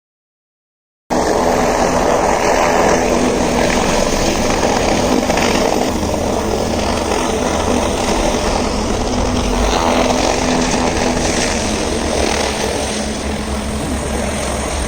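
Helicopter running close by: a loud, steady drone of engine and rotor that cuts in abruptly about a second in.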